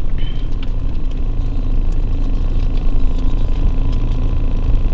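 Steady low rumble of car cabin noise, with a few faint clicks.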